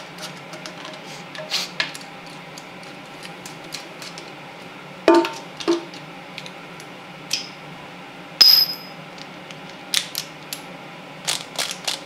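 Scattered sharp metallic clicks and clinks of hand tools, a ratchet and a torque wrench, working the timing chain cover bolts on a Chrysler 383 big-block. The loudest knocks come about five seconds in and again about eight seconds in, the second with a brief ringing metal clink.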